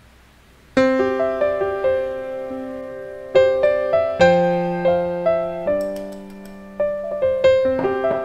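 Background piano music: a gentle melody of struck notes that starts about a second in, after a faint hiss.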